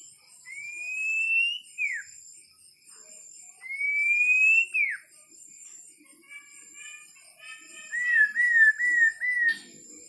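White-rumped shama singing: two long whistles that each rise and then drop off sharply, then a run of short notes ending in a quick warbling phrase near the end. A steady high-pitched trill runs behind it.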